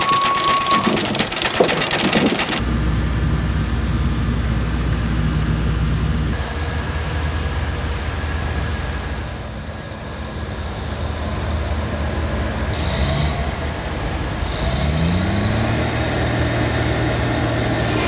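Steam sawmill machinery clattering amid hissing steam; about two and a half seconds in, the sound cuts to a bulldozer's diesel engine running steadily, revving up twice near the end.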